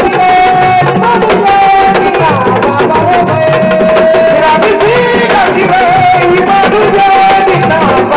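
Music with hand drumming under a held melody line that bends and glides in pitch, loud and even throughout.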